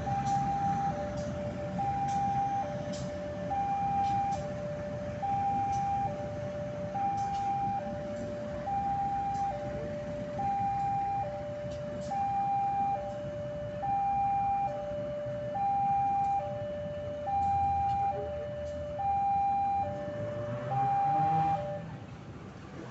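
Railway level-crossing warning alarm sounding a steady two-tone signal, a higher and a lower tone taking turns, each lasting under a second; it stops near the end. Beneath it runs the low rumble of a CC 201 diesel-electric locomotive moving slowly past on a shunting move.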